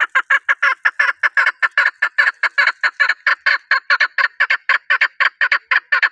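Chukar partridge calling: a rapid, even series of short clucking notes, about six a second.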